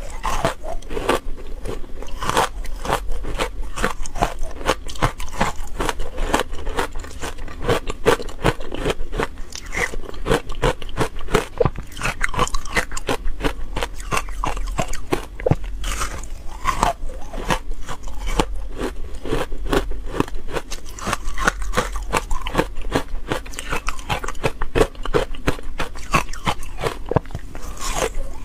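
Hard frozen matcha ice being bitten and chewed close to a clip-on microphone: a dense, continuous run of sharp crunches and cracks.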